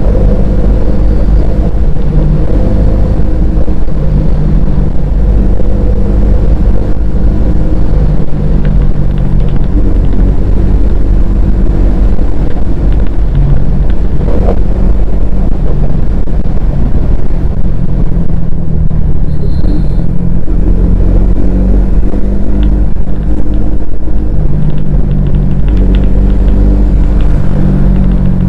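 Bajaj Pulsar N250 motorcycle's single-cylinder engine and exhaust running loud under a deep rumble, the engine note stepping up and down in pitch every few seconds as the throttle changes.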